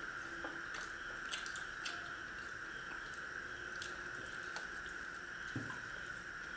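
Quiet sounds of people eating paratha by hand: chewing, with scattered small clicks and taps of fingers and food against plates, and one soft thump a little before the end. A steady high hum runs underneath.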